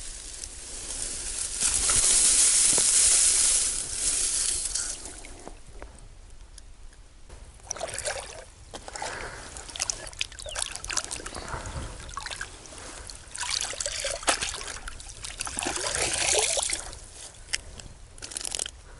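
Shallow water splashing and sloshing as a pike is handled by hand at the water's edge. The loudest stretch comes about two seconds in, followed by irregular bursts of splashing in the second half.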